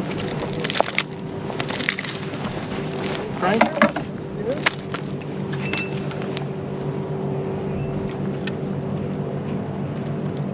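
A boat motor hums steadily, with a scatter of sharp clicks and knocks over the first half or so from fishing gear being handled.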